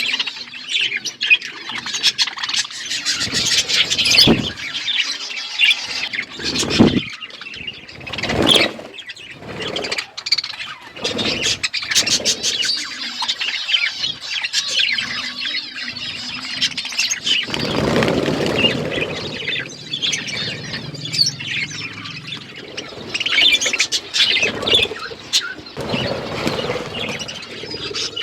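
A group of budgerigars chattering and chirping steadily, with scattered sharp knocks and taps among them.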